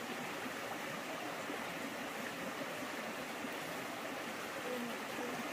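Water of the Nahal Prat stream flowing, a steady even rush.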